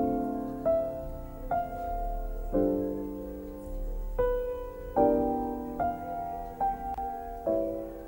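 Slow piano music, a note or chord struck about once a second, each fading before the next.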